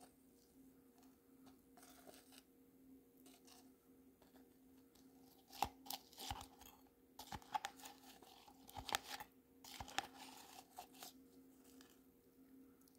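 A metal spoon scraping and clicking against a plastic tub as it digs into thick paste: a run of sharp clicks and scrapes starting about five seconds in and lasting some five seconds, over a faint steady hum.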